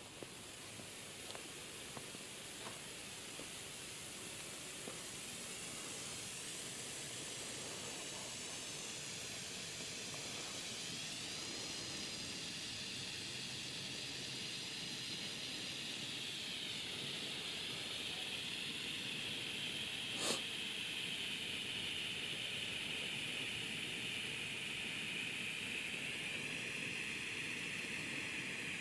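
Red Bengal flare (Pyrogiochi Bengala Rosso, category F1) burning with a steady hiss that grows louder over the first several seconds as it takes hold, with a few faint crackles in the first seconds. One sharp click about twenty seconds in.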